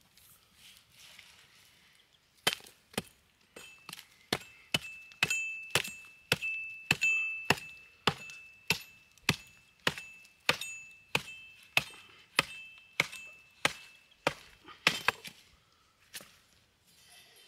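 Wood being chopped by hand: a steady run of strikes, about two a second, each with a short ringing note. The strikes begin a couple of seconds in and stop shortly before the end.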